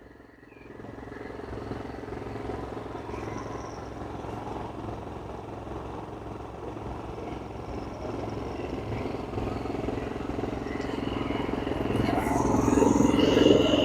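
A-iPower GXS7100iRD inverter generator's 322 cc overhead-valve engine running steadily with eco mode off: a deep rumble, but pretty quiet. It grows louder near the end.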